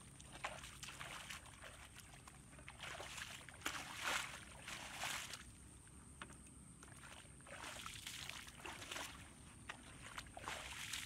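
Bare feet wading through shallow muddy water, sloshing and splashing in uneven bursts of steps. The loudest stretch comes about four to five seconds in.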